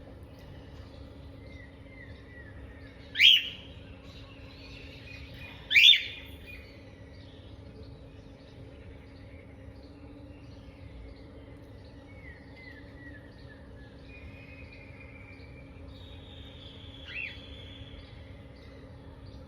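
Two loud, short sneezes about two and a half seconds apart, then a fainter one near the end, over birds chirping steadily in the background.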